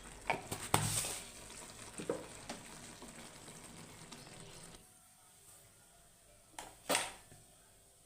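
A soft sizzling hiss that stops about five seconds in, with several sharp clicks and knocks; the loudest knock comes near the end.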